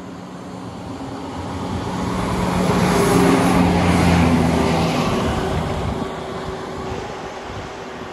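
Class 170 Turbostar diesel multiple unit passing close by: its diesel engine hum and wheel-on-rail noise build to a peak about three to four seconds in, then fade as it runs away.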